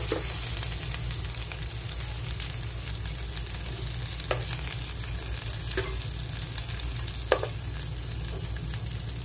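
Whole shrimp and sliced onion sizzling in oil in a nonstick frying pan, a steady hiss. Metal tongs click against the pan a few times as the shrimp are turned, loudest near the end.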